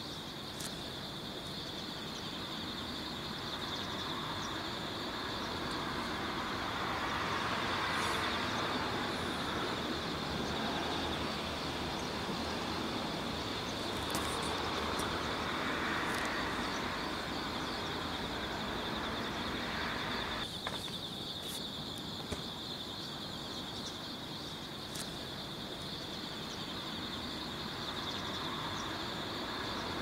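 Outdoor ambience: a steady high-pitched insect drone over the rushing noise of passing vehicles, which swells twice.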